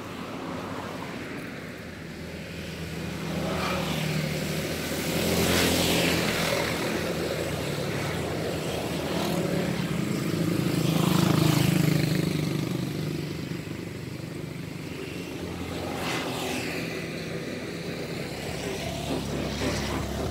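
Engines of passing motor vehicles, swelling and fading several times; the loudest passes come about five and eleven seconds in.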